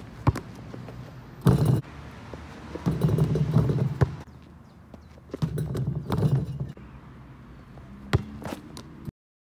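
A basketball bouncing on an outdoor asphalt court: a few scattered sharp thuds, with stretches of low rumbling noise between them. The sound cuts off just before the end.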